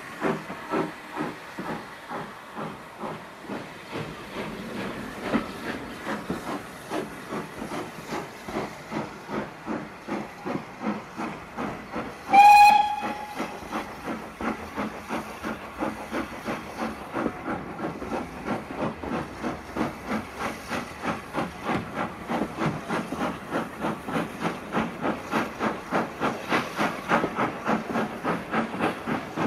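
Steam locomotive heard from a carriage behind it, pulling away, its exhaust beats chuffing steadily and getting a little quicker as the train gathers speed. About twelve seconds in the whistle gives one short, loud blast.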